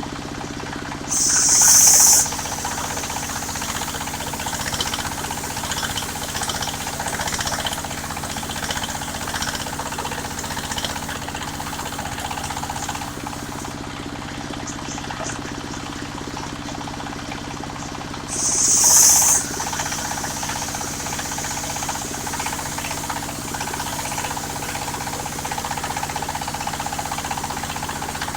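Engine of a mobile circular sawmill running steadily, with two loud, high-pitched bursts of about a second each: one about a second in, the other about two-thirds of the way through.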